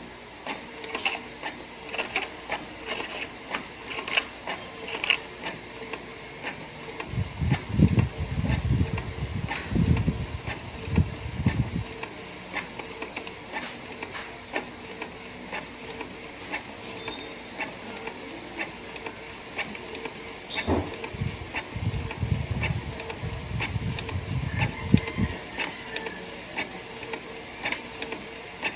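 Canon PIXMA all-in-one inkjet printer scanning and printing a copy. The mechanism clicks and ticks repeatedly, with two stretches of louder low whirring from the paper feed and carriage: one about seven seconds in and another a little past twenty seconds.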